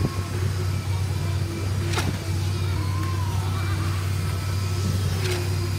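Concrete pump truck's diesel engine running with a steady low drone, with three sharp knocks at uneven spacing (at the start, about two seconds in and near the end).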